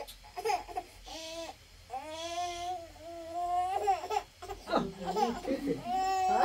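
A baby babbling: a run of high-pitched drawn-out vocal sounds, the loudest near the end.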